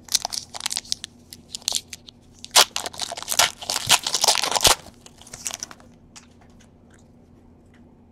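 The crinkly wrapper of a trading-card pack being torn open and scrunched by hand: a dense run of crackling and tearing, loudest about halfway through, that stops about six seconds in, leaving only a few faint ticks.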